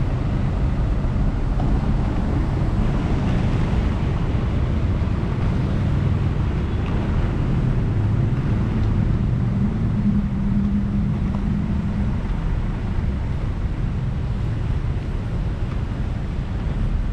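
Intercity coach's diesel engine running with a steady low rumble.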